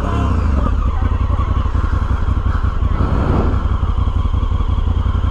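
Motorcycle engine running steadily with a fast, even exhaust pulse.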